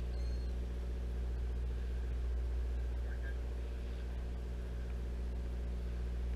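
Sportfishing boat's engine running steadily: a low, even hum with a set of steady higher tones above it.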